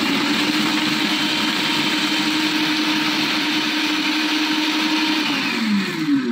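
Anex electric food chopper running at full speed, its blade chopping garlic, ginger and green chillies: a loud, steady motor whine that winds down with falling pitch near the end as it is switched off.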